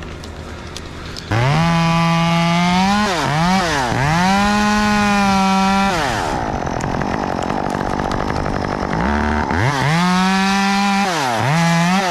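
Top-handle chainsaw cutting an oak limb. It idles, is throttled up to full speed about a second in, with its pitch dipping sharply a few times as the chain bites. It drops back near the middle and revs up again to cut near the end.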